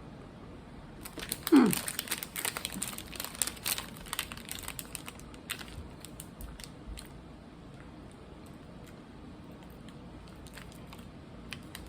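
Wrapper crinkling and biting into and chewing a cookie-dough candy bar: a flurry of crisp crackles and clicks through the first half that dies down about halfway through.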